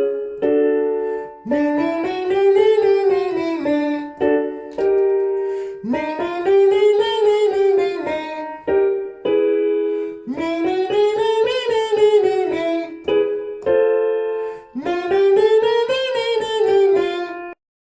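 Vocal warm-up exercise: a singer's voice glides smoothly up and back down in pitch on a held vowel, four times, each glide starting a step higher. Short piano chords play between the glides, giving the next starting pitch.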